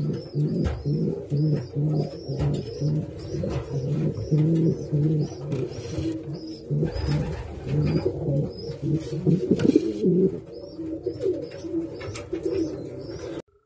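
Domestic racing pigeons cooing in a loft, a continuous run of low coos repeating about twice a second, with a few light knocks mixed in. The sound cuts off abruptly near the end.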